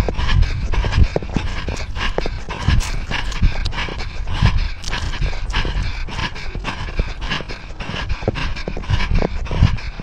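A dog panting fast and hard right at the microphone while running, with low thumps and jostling of the body-mounted camera.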